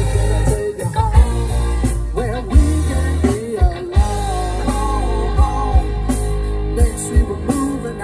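Live band playing through a stage sound system: a singer over electric guitar, bass and a drum kit beating steadily.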